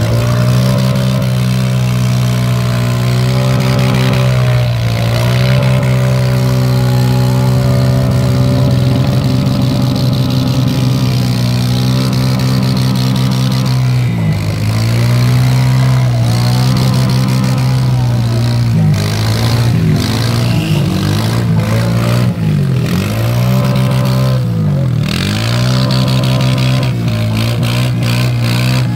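ATV engine running hard through deep mud. For the first half it holds a steady high rev, then it repeatedly bogs down and picks back up in pitch as the wheels churn.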